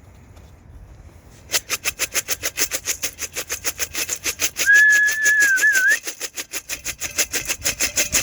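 Rhythmic rattling, about five shakes a second, starting about a second and a half in. Around the middle a person whistles one held note that wavers at its end; it is the loudest sound and is used to call the racing pigeons in.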